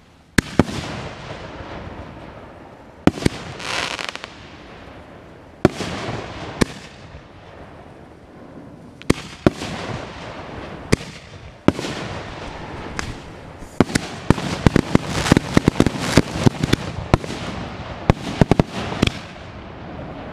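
Aerial firework shells bursting overhead: a series of sharp bangs a second or more apart, then a rapid run of many close-spaced pops about two-thirds of the way through.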